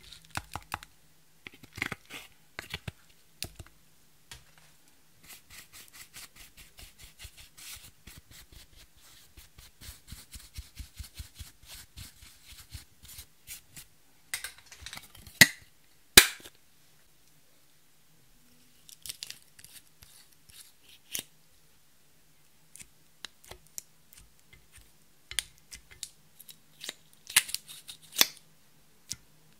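Pressed blush powder crumbling and scraping out of a clear plastic makeup palette into a glass dish, with a fast run of small crisp ticks through the middle. The plastic palette knocks sharply against the dish, loudest about sixteen seconds in, with more clicks and knocks near the end.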